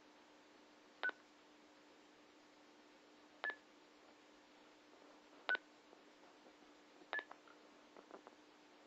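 Short electronic beeps from a handheld two-way radio, four in all about two seconds apart and slightly differing in pitch, with a few faint clicks after the last one, over a faint steady hum.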